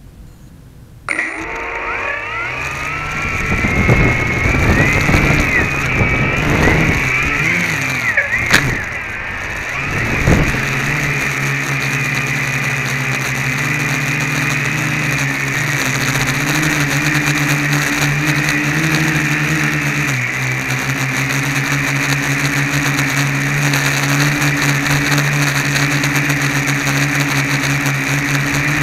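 Home-built quadcopter's four electric motors and propellers, heard from a camera on the frame. They spin up about a second in and rise and fall in pitch for several seconds as the craft lifts off the grass, with one sharp click. Then they settle into a steady hum as it hovers.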